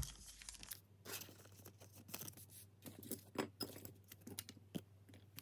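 Trading cards being handled: faint scattered clicks and light scrapes as the cards are slid and flipped one behind another.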